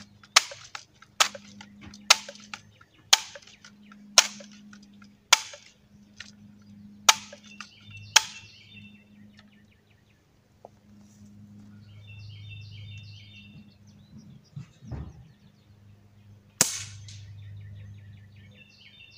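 Barra 1866 lever-action BB gun being readied: about eight sharp metallic clacks roughly a second apart as the lever is worked to cock and pump it, then a single sharp air-gun shot near the end.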